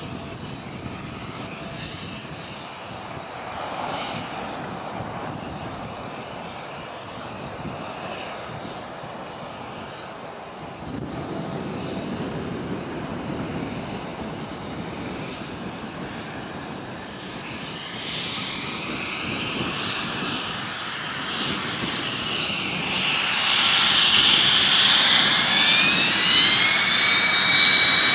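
Turbofan engines of a Cessna Citation CJ1 business jet whining on the ground as it taxis, growing louder over the last third. Near the end the whine rises in pitch.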